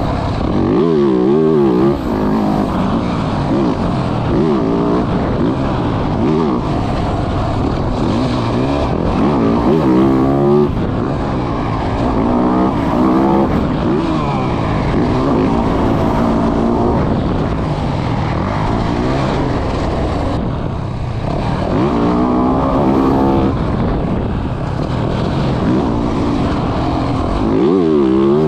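Motocross dirt bike engine being ridden hard, its pitch climbing and dropping over and over with throttle and gear changes.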